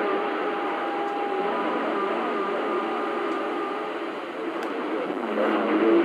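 CB radio receiving on channel 28, its speaker giving a steady hiss of static with a few steady whistling tones and faint, garbled voices of distant stations breaking through, clearer near the end.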